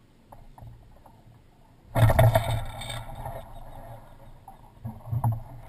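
Wind gust buffeting the microphone while the Hobie 21's jib sail flaps and luffs, starting suddenly and loudly about two seconds in and settling to a rougher, lower rush. A few sharp knocks from the rigging near the end.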